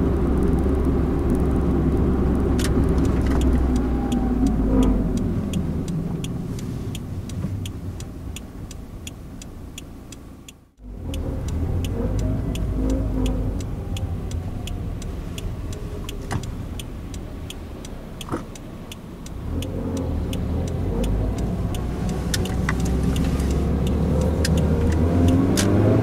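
Engine and road noise inside a Toyota AE111 Corolla Levin's cabin, from its 1.6-litre four-cylinder. The noise eases off, cuts out for a moment about ten seconds in, and stays quieter for several seconds. It then builds again as the car gathers speed.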